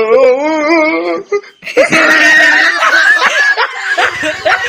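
Loud laughter with a wavering, warbling pitch, breaking off briefly after about a second and then resuming with more laughing voices.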